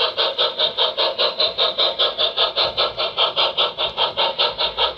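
On30 model steam locomotive's onboard sound system playing fast, even chuffs while the engine runs.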